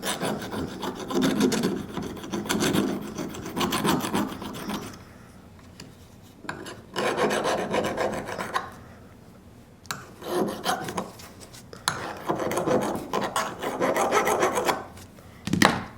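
Leatherman multitool's file rasping back and forth across the edge of an ION 10-inch ice auger blade, in four spells of quick strokes with short pauses between. The edge is being filed straight and sharp again after being nicked and dulled on mud and gravel.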